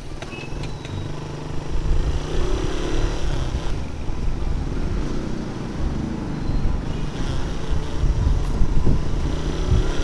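Suzuki Raider 150 motorcycle's single-cylinder engine running steadily while riding through town traffic, with a low rumble of wind and road noise underneath.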